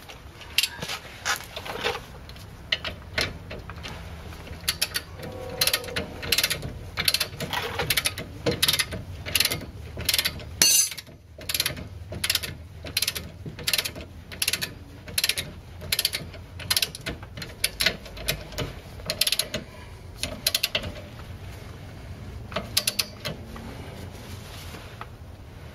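Torque wrench being swung back and forth as a ratchet on a suspension nut, its ratchet head giving runs of sharp clicks, with a short pause about eleven seconds in.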